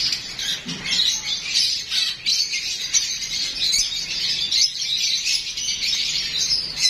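Many caged parrots chattering and squawking together, high-pitched calls overlapping into a constant din.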